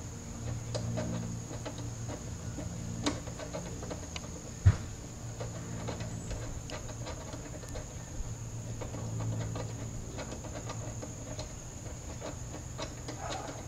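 Faint, irregular small clicks and scrapes as a bolt is turned out by hand with a 10 mm socket on an extension, with one sharp click about four and a half seconds in; a low steady hum lies underneath.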